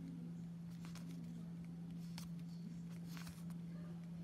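Glossy baseball cards being flicked and slid through a stack by hand, a few faint papery rubs and flicks, over a steady low hum.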